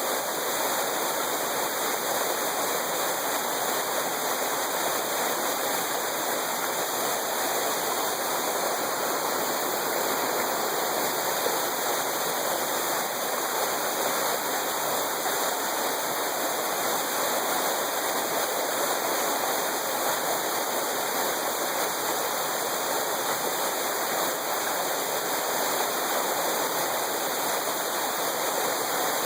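Waterfall rushing, loud and steady.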